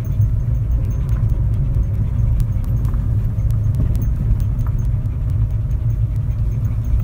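Car driving on a gravel road, heard from inside the cabin: a steady low rumble of engine and tyres, with faint scattered ticks.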